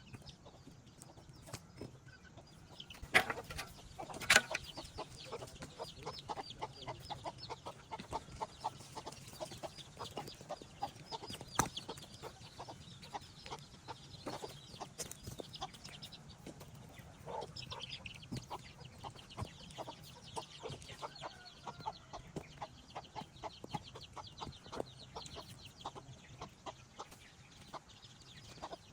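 Chickens clucking, with many small taps or clicks throughout and two louder sharp knocks a few seconds in.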